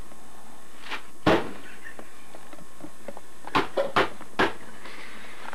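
A phone book striking a person lying on the floor under a blanket: one strong thud a little over a second in, then four quicker thumps in a cluster about three and a half seconds in, over a steady hiss.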